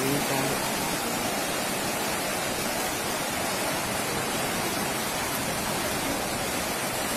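Fast-flowing floodwater rushing down a street: a steady, even rush of water.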